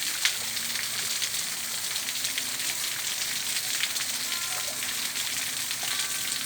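Waterfall rushing in a steady hiss, with faint scattered crackles.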